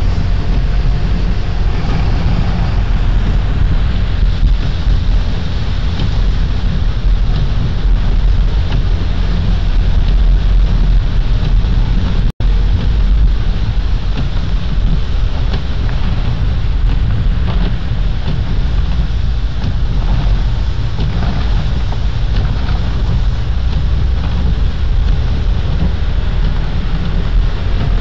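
Steady low rumble of a taxi's engine and tyres on a snowy street, heard from inside the cabin. The sound drops out for an instant about twelve seconds in.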